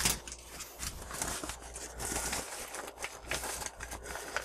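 Crinkling and rustling of a padded paper mailer as a small plastic-bagged item is pulled out of it, with scattered light clicks and taps.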